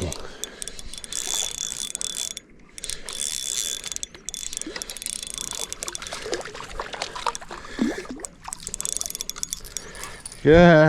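Small 1000-size spinning reel being wound, its gears giving a steady high whine that stops and starts several times as the lure is worked. A short shout comes near the end.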